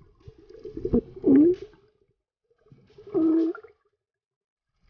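Muffled underwater gurgling and bubbling in two short bursts, each with a brief hum-like tone, and a sharp click about a second in.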